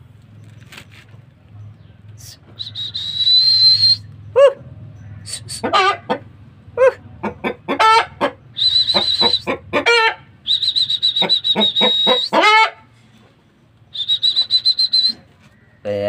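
Chickens clucking and calling in a rapid series of short, pitched calls, with several long, high, steady whistle-like notes between them.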